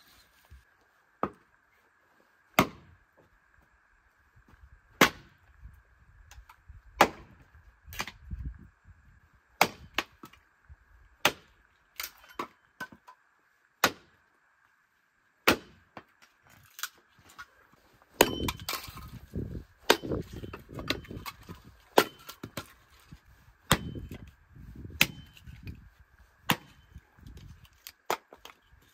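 Sharp single knocks, one every one to two seconds, with rumbling handling noise between them in the second half and a faint steady high tone underneath.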